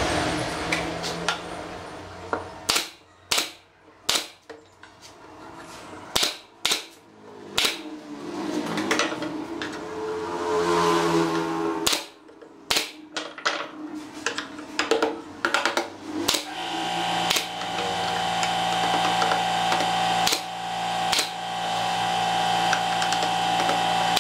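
Pneumatic brad nailer firing nails into wooden slats: a string of sharp shots, some single and some in quick runs. A steady hum sets in about two-thirds of the way through.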